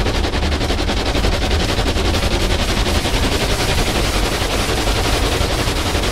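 Automatic car wash heard from inside the car: the rotating brushes and water spray drum rapidly and evenly on the car's body and glass, over a deep rumble from the machinery.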